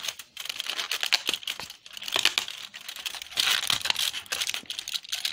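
Cardboard door of a Maltesers Merryteaser chocolate advent calendar being pressed in and torn open by fingers, with a run of irregular crackling and crinkling.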